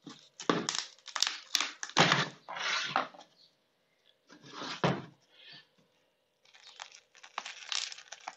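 Cured polyurethane foam casting tearing and cracking away from a 3D-printed plastic two-part mold as the halves are prised apart with a screwdriver and then pulled by hand. The cast is sticking to the mold despite a wax release, so it comes free as a series of irregular crackles, scrapes and sharp clicks.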